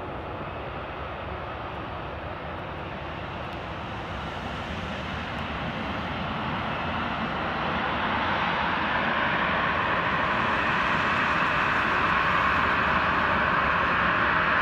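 Boeing 737-800 jet engines (CFM56-7B) running at taxi power, a steady jet rush and whine. It grows louder from about four to eight seconds in as the airliner turns and comes toward the listener, then holds steady.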